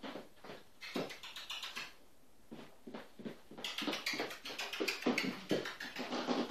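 Miniature schnauzers' paws and claws tapping and pattering irregularly as the dogs move about on a blanket and wooden floor, busier from about halfway through.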